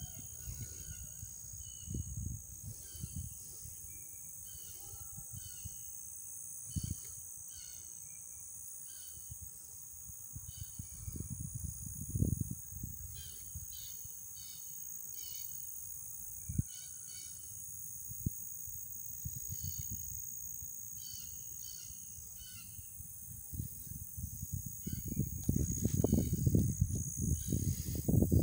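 Steady high-pitched chorus of summer insects, with scattered short chirps over it and low rumbling on the microphone that gets heavier near the end.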